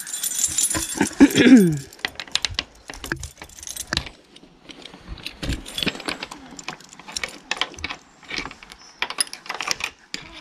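Keys jangling, then a run of irregular light clicks and rattles, as of a lock and latches being worked on a hen house.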